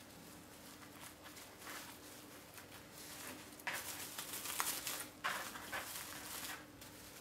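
Plastic cling film crinkling and rustling as it is rolled and pulled tight around a filled bread log, louder in two stretches in the second half.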